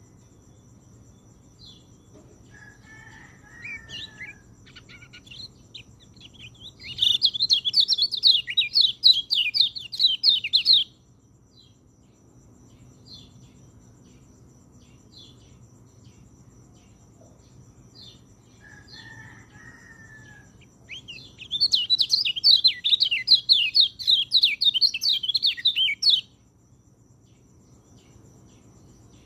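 Peleci song: two loud phrases of rapid warbling, each about four seconds long, with soft scattered call notes between them.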